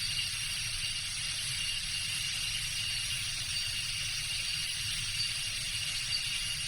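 Thai jungle forest ambience: a steady, high-pitched drone over a low rumble, unchanging throughout.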